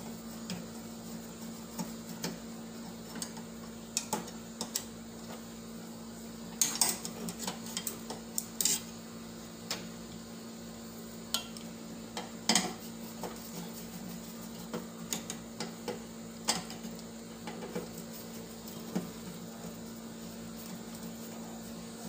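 Screwdriver working on the screws holding a microwave oven's magnetron, giving irregular metallic clicks, taps and scrapes against the sheet-metal housing. A steady low hum runs underneath.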